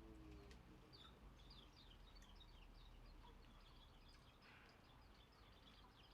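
Small songbirds twittering faintly: a rapid run of short, high chirps that slide down in pitch, several a second, starting about a second in.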